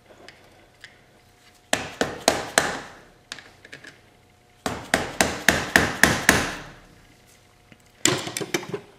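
Hammer blows on a screwdriver driven in as a wedge behind a stuck motorcycle gear shift lever, to force it off the shift shaft. The blows come in three quick runs: about four, then about seven, then two or three near the end.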